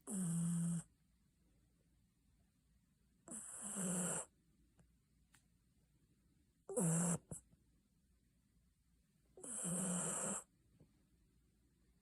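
Basenji dog snoring: four snores roughly three seconds apart, each lasting under a second, with a low buzz under a hissy breath.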